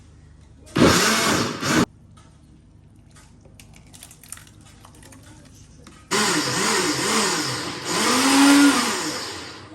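Electric blender running in two goes: a short burst about a second in, then a longer run from about six seconds, its motor pitch rising and falling as it runs.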